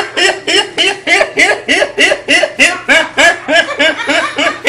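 A young man laughing hard and without pause, a steady run of short rising-and-falling laughs at about three a second.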